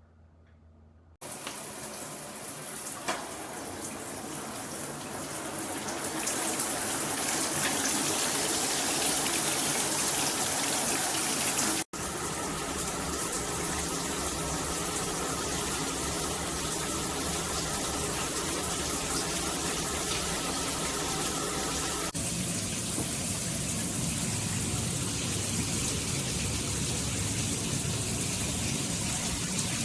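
Water spraying from a chrome rain shower head and handheld shower: a steady rushing hiss that starts suddenly about a second in, breaks off for an instant about halfway, and changes its tone twice.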